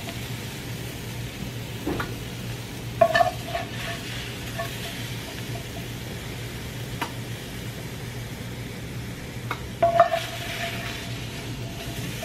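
Wooden spatula scraping and scooping broccoli and onion out of a frying pan over a steady sizzle, with short knocks and scrapes of the spatula against the pan, the loudest about three seconds in and again about ten seconds in.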